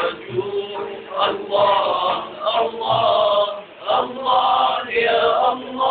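A group of men singing an Arabic nasheed together in a chanting style, with a frame drum beating along under the voices.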